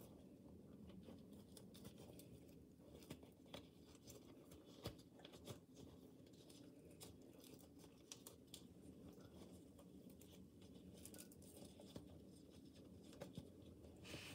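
Near silence: room tone with faint, scattered light clicks and rustles of small things being handled.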